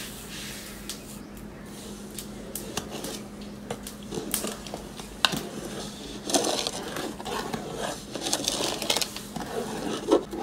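Sugar pouring in a stream into a large pot of strawberry puree, then a long metal spoon stirring the liquid, scraping and knocking against the sides of the aluminium pot, the clatter growing busier in the second half.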